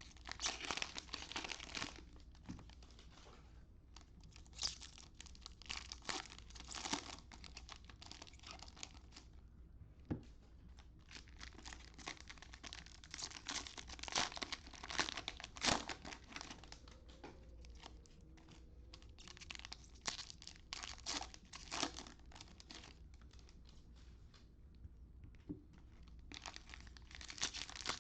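Cellophane wrappers of Panini Prizm Draft trading-card packs being torn open and crinkled by hand, in irregular spurts of crackling with short pauses between.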